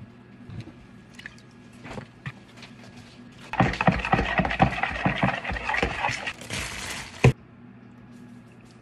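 Pumpkin pie filling being stirred briskly in a plastic mixing bowl: rapid scraping and tapping strokes of the utensil against the bowl. The stirring starts about a third of the way in and cuts off sharply with a click shortly before the end. Faint taps come before it.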